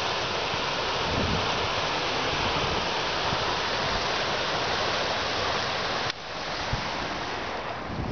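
Steady rushing of high, turbulent water pouring down a rock-lined stream channel below a dam, swollen by rain. Wind buffets the microphone now and then.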